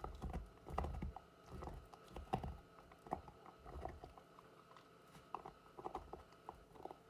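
Alaskan malamute gnawing on a hard chew: irregular clicking and crunching of teeth on it, a few bites a second, heavier knocks in the first second or so.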